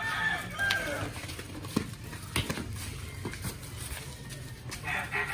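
Background sound of an outdoor street basketball game: scattered sharp knocks from the play over a low steady hum, with a few short high-pitched calls in the first second.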